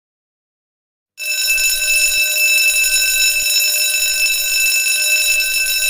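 An alarm bell rings loudly and continuously, a steady metallic ringing that starts abruptly about a second in.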